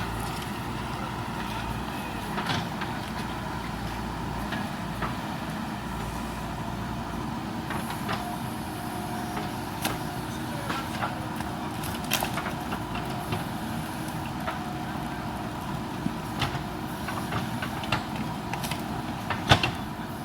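Diesel engine of a JCB backhoe loader running steadily under work, with scattered sharp knocks and cracks, the loudest near the end.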